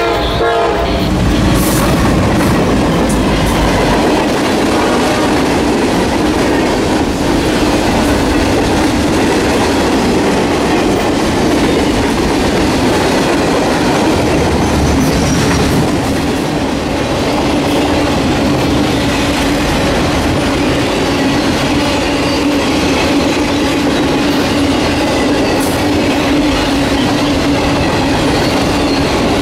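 Norfolk Southern freight train passing close by: the diesel locomotive's heavy rumble for the first few seconds, then the steady rolling clatter of freight cars' wheels on the rails.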